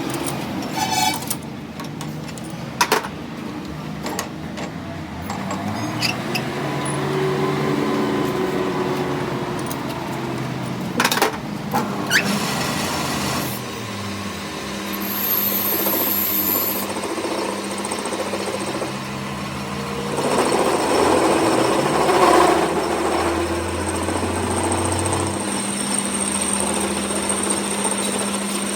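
Metalworking tool noise: a motor running steadily, with a few sharp metal knocks and clinks.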